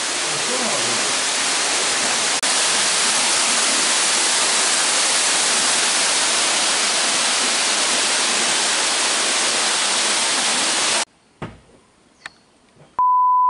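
Waterfall plunging through a rock arch into a cave pool: a steady loud rush of falling water. It cuts off about eleven seconds in, and near the end a loud steady electronic beep starts.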